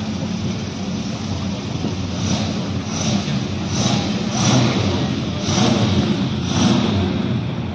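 Engines of vintage cars running, a steady low drone with about six short swells of hiss over the second half, louder around the middle and near the end.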